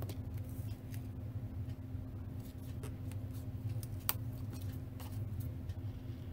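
Light handling of paper and foam tape: fingers pressing and rubbing layered strips down on a card, with a few short, sharp ticks about once a second, over a steady low hum.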